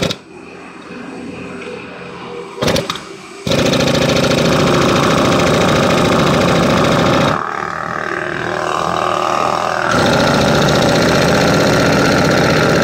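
Pneumatic hammer splitter running in a drilled hole in a stone block, a loud continuous mechanical rattle. It is much quieter for the first three and a half seconds apart from a brief loud burst, runs at full strength, eases for a couple of seconds past the middle, then comes back at full strength.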